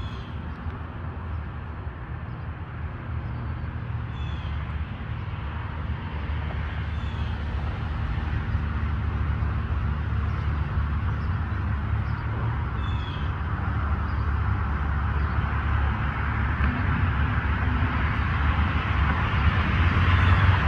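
Outdoor ambience: a steady low rumble with a hiss that grows louder toward the end. A few short, high, falling chirps come about four, seven and thirteen seconds in.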